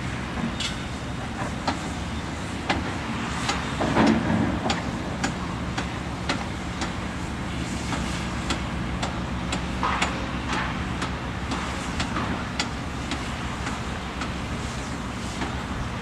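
Diesel engine of a crawler excavator running steadily as it digs, with frequent short clanks and knocks throughout, the loudest about four seconds in.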